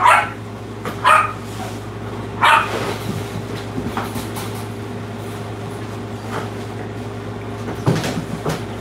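A dog barking, three short barks in the first few seconds and a few fainter ones near the end, over a steady low hum.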